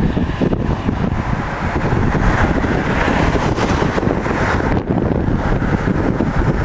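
Wind buffeting the camcorder's microphone: a loud, continuous gusty rumble.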